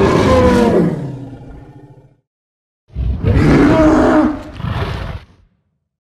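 Zilla's roar from the 1998 Godzilla film, played twice. The first starts loud and trails off over about two seconds. After a short silence a second roar lasts about two and a half seconds.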